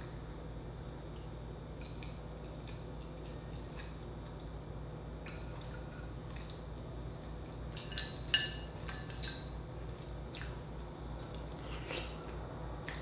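Close-up wet eating sounds: soft squishy mouth sounds with scattered small clicks, and one sharp click about eight seconds in.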